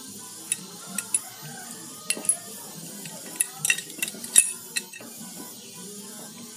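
Sharp metallic clinks and taps, about ten of them at irregular intervals, the loudest past the middle, as a steel puller and washers knock against an aluminium motorcycle water pump housing while the puller is fitted to pull out the water pump seal.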